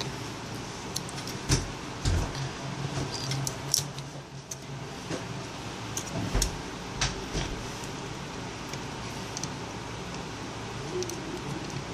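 Scattered small clicks and taps of metal tweezers and tiny parts against an iPhone 5's opened frame and the work mat during disassembly, a dozen or so short ticks at irregular intervals.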